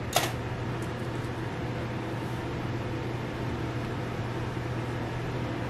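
Steady low mechanical hum of kitchen machinery, with one sharp knock just after the start and a few faint ticks about a second in.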